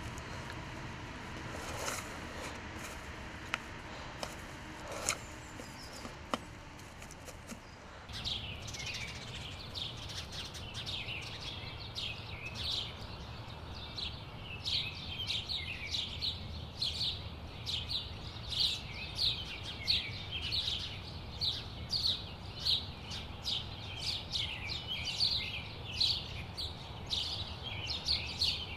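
Small birds chirping and singing in quick, continuous runs, starting about a quarter of the way in, over a low steady rumble. Before that, a few light clicks and taps.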